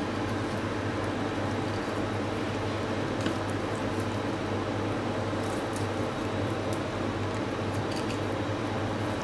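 A boning knife cutting through raw chicken leg meat and scraping along the bone, with a few faint small clicks and wet squishes, over a steady mechanical hum that is the loudest thing throughout.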